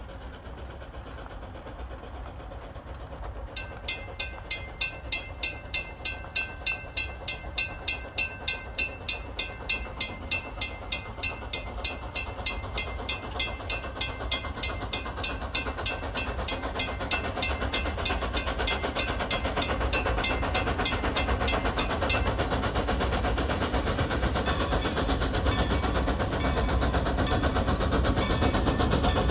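Railroad grade-crossing warning bell starts a few seconds in, ringing in quick, even strokes, and stops a little past the middle. Under it the rumble of an approaching steam locomotive, the 1924 Baldwin 2-10-0 Decapod No. 90, grows steadily louder.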